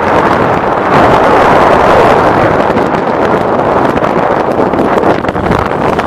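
Loud, steady wind rush buffeting the microphone of a camera moving at speed, covering other sounds.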